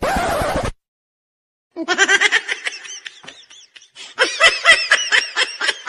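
High-pitched laughter in quick, regular 'ha-ha' pulses, starting about two seconds in after a short noisy burst and a second of silence.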